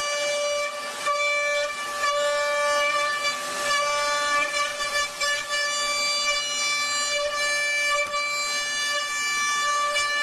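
A metalworking machine tool running with a steady high-pitched whine of several tones over a hiss that rises and falls.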